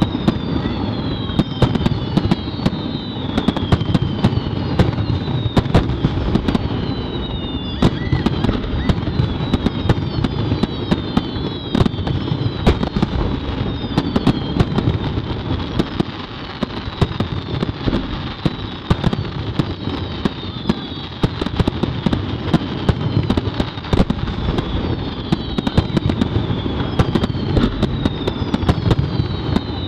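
Fireworks display finale: a dense, unbroken run of sharp bangs over a continuous low rumble, with repeated whistles that fall in pitch.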